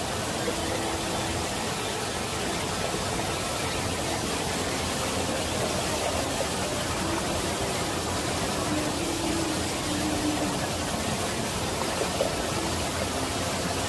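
Mountain valley stream flowing steadily over rocks, a continuous even rush of water.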